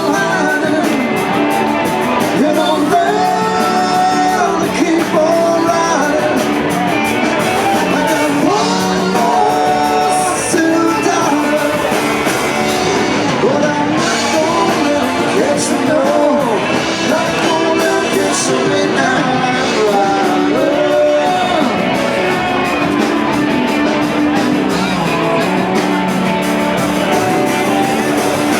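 Live rock band playing, guitar-led, with a singer's voice over it.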